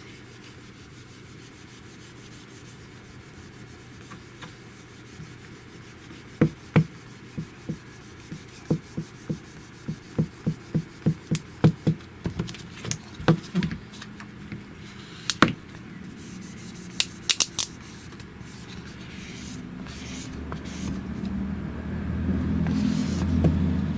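Screen protector film being worked onto a phone screen by hand: a run of light clicks and taps, then a rubbing sound that grows louder near the end as the film is smoothed down to push out bubbles.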